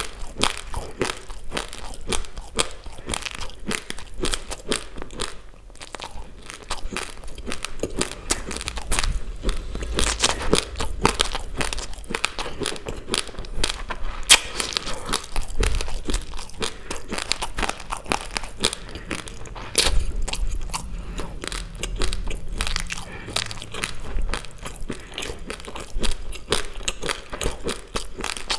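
Close-miked chewing of raw basmati rice: a dense, irregular run of hard crunches as the dry grains are crushed between the teeth.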